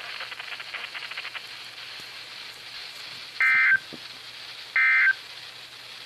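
Same-coded Emergency Alert System end-of-message data bursts played through a Midland weather radio's speaker: short, identical bursts of buzzy digital tone a little over a second apart, two of them, with a third beginning at the very end. They close a NOAA Weather Radio required weekly test.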